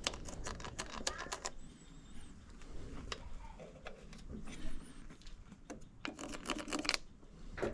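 Light clicks and taps of hand tools and parts being handled on a workbench while the vise's mounting holes are marked, in two clusters: one near the start and one about six seconds in.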